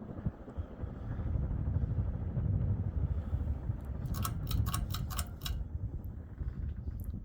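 1984 Panasonic Lancelot 52-inch ceiling fan running on high, a steady low rush of air. A quick run of about seven sharp clicks comes about four seconds in.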